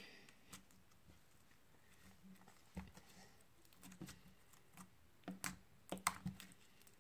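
Faint, irregular small clicks and pops of clear green slime being squeezed and folded by hand, coming more often in the second half.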